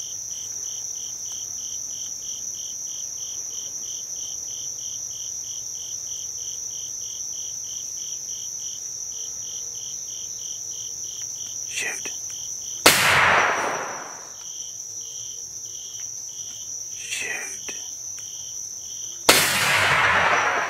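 Two shotgun blasts about six seconds apart, each echoing through the woods, fired at a coyote. Underneath, insects chirp steadily about twice a second over a constant high buzz.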